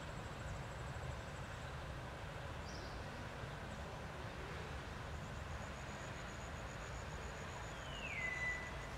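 Outdoor forest ambience: a steady low rumble, a faint high steady whine in the second half, and near the end one high call that slides down in pitch and holds briefly.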